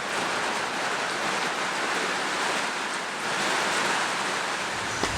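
Rainforest night ambience: a dense, steady hiss with no single call standing out, and a small click near the end.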